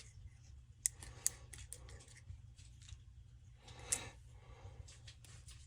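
Faint clicks and light scraping of parts being handled on a cut-off saw under repair, with three sharper clicks spread through.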